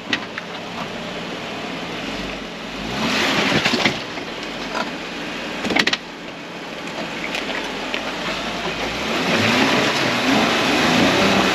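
Jeep engine running under load as it crawls over tree roots, with tires scrabbling on the roots. The noise swells twice, briefly about three seconds in and again for the last few seconds, with a sharp knock a little before six seconds in, as the back tires catch on the roots.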